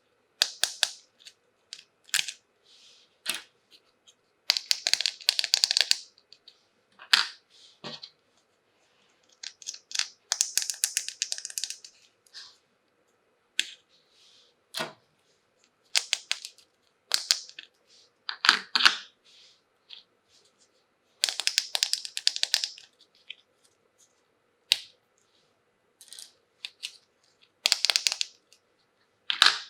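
Toys and their packaging being handled during an unboxing: irregular bursts of crinkling and rustling, each a second or two long, mixed with sharp small clicks and taps.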